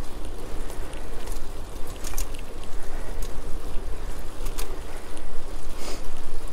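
Wind buffeting a GoPro microphone on a moving bicycle: a loud, fluttering rush with deep rumble, with a few sharp clicks and rattles from the bike along the way.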